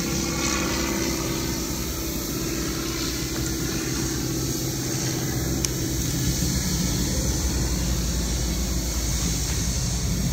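CSX diesel locomotive running as it approaches at the head of a loaded coal train, a steady engine hum with a low rumble that grows stronger in the second half as it draws nearer.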